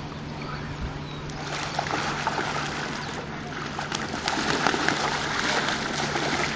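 Water splashing and trickling, a crackly hiss that sets in about a second in and grows louder.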